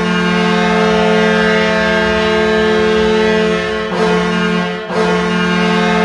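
Goal horn blowing one long, steady, low chord, dipping briefly twice about four and five seconds in.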